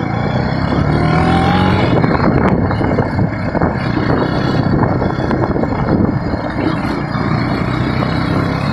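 KTM 250 Duke's single-cylinder engine running under way on a rough, rocky track, with many short knocks and rattles from the bumps. The engine pitch rises briefly about a second in.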